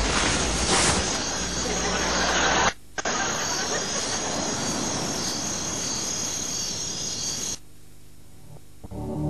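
A loud, steady rushing noise with no clear pitch, cut off briefly about three seconds in and dropping away shortly before the end.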